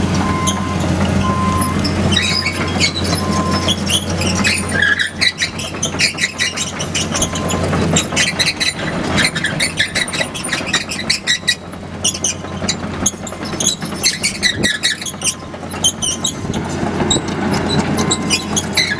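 2008 John Deere 200LC tracked excavator running, its John Deere 6068H six-cylinder diesel engine giving a steady low drone under a regular beep. From about five seconds in come many rapid metallic clanks and high squeaks as the machine moves.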